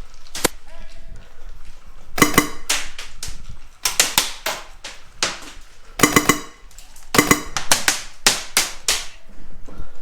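Airsoft rifle firing in irregular semi-automatic shots, single cracks and quick strings of two to four, with a sharp snap each time.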